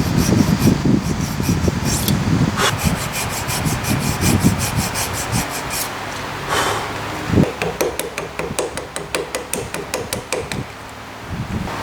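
A hand tool working wood in quick repeated scraping strokes, with a faster, sharper run of strokes in the second half.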